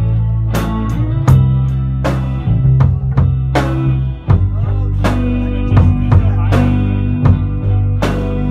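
Music: a rock-style song with drum kit, bass and guitar, keeping a steady beat of about two drum hits a second.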